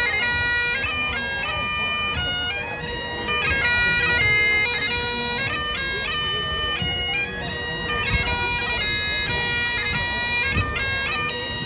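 Great Highland bagpipe playing a quick tune over its steady drones.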